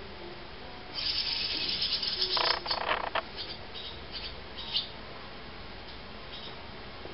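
A brood of barn swallow chicks giving a burst of shrill, massed begging calls about a second in, lasting roughly two seconds, followed by a few short separate chirps. This begging chorus is the chicks calling to be fed.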